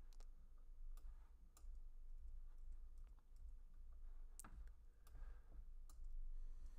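Faint, irregular clicks and keystrokes of a computer mouse and keyboard while code is edited, over a steady low hum.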